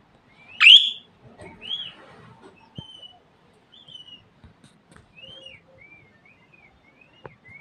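Budgerigar calling: one loud, sharp chirp about a second in, then a string of short whistled chirps that rise and fall in pitch.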